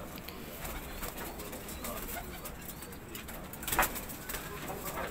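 Domestic pigeons cooing softly in a wire-mesh loft, with one short sharp noise about four seconds in.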